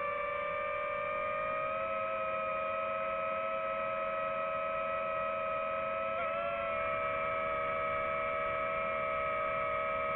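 Multirotor drone's motors and propellers whining steadily in a hover, a hum of two close pitches, with a brief wobble in pitch about six seconds in.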